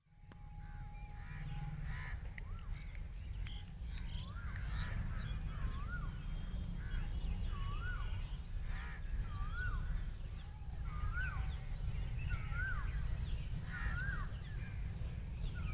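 A bird repeating a short swooping call, rising then falling in pitch, about once a second, over a steady low rumble.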